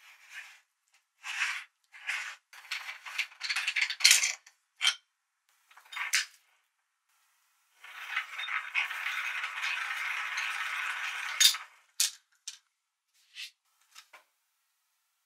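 Metal parts of a hand-cranked aluminium meat grinder clinking and scraping as the ring nut, perforated cutting plate and knife are taken off and set down on a plate of minced cucumber. It comes as scattered clinks and short scrapes, a longer spell of scraping in the middle, and a few light ticks near the end.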